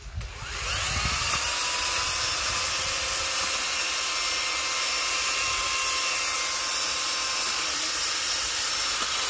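Makita UX01G 40V XGT cordless power head with its EY401MP pole saw attachment spinning up in the first second, then running at a steady speed: a constant high-pitched electric whine with the chain whirring.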